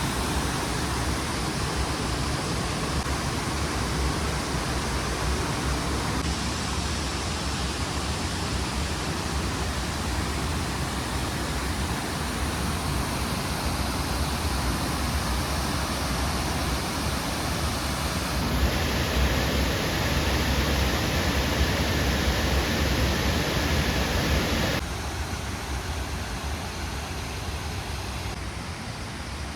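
Steady rush of water from a small waterfall on a river, with abrupt shifts in level and tone a few times, loudest for a stretch past the middle.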